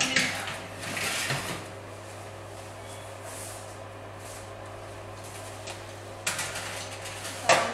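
Metal baking tray sliding and rattling onto a wire oven rack, then a steady low hum. A scrape comes near the end, followed by one sharp clunk as the oven door is shut.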